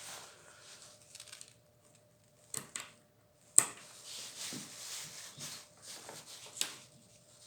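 Handling noise of tools and small parts: a few sharp clicks and knocks, the sharpest about three and a half seconds in, with soft rustling between them.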